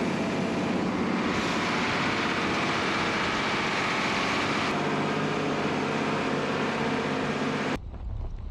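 Mercedes-Benz 1120 truck driving along a gravel track, heard from its side: a steady rushing of tyres on gravel and passing air, with the engine faint. The rushing cuts off suddenly near the end.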